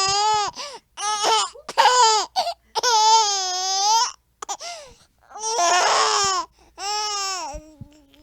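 A baby laughing in long, high-pitched squealing 'aaah' shrieks, about six in a row with short breaks between them.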